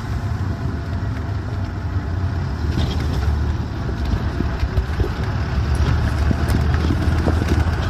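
A moving road vehicle's engine and tyre noise: a steady low rumble with a few faint ticks.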